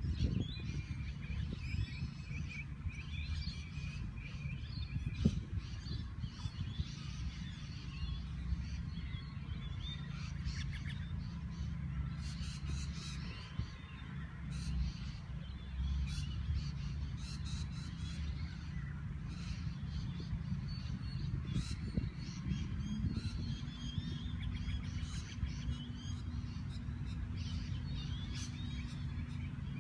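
Birds chirping and calling again and again over a steady low rumble of outdoor background noise, with a low steady hum joining about two-thirds of the way in.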